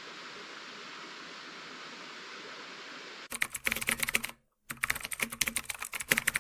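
A steady hiss, then from about three seconds in a fast, irregular run of clicks and taps, broken once by a short silent gap.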